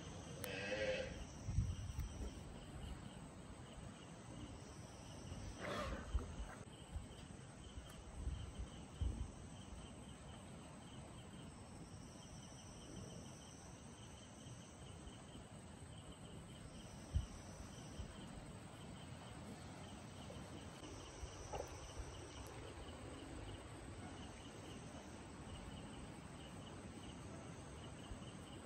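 Crickets chirping steadily, with a higher insect buzz coming and going. A short wavering call sounds about a second in, and a brief sound about six seconds in, with a few low thumps in the first ten seconds.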